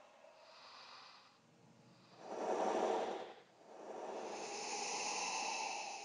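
Creepy, breathy horror vocal effect. A faint hiss of breath comes first, then a louder breath about two seconds in, then a longer drawn-out one from about four seconds.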